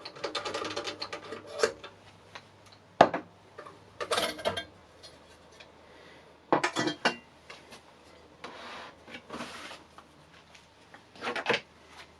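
Metal tools and parts being handled at a workbench, clinking and clattering: a quick rattle of clicks at first, then scattered knocks, the sharpest about three seconds in, and a short rubbing sound near the middle.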